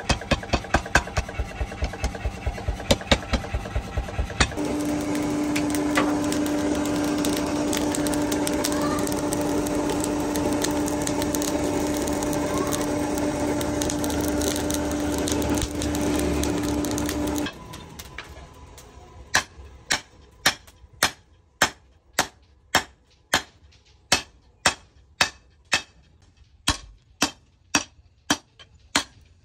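A mechanical power hammer pounds a red-hot steel bar in a fast, even rhythm of about four to five blows a second. It stops, and a coal forge takes over: the fire and its air blower make a steady roar with a low hum. About a second or two after that cuts off, a hand hammer strikes the hot bar on an anvil, about one and a half ringing blows a second.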